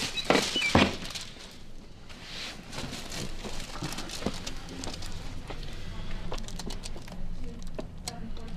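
A person turning over on a chiropractic treatment table: rustling, shuffling and a few soft knocks, loudest just under a second in, then smaller rustles and clicks as they settle.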